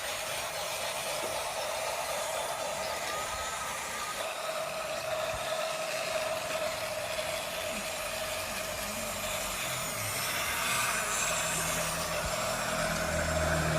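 Battery-powered toy train running, its small electric motor and gears whirring with a steady whine.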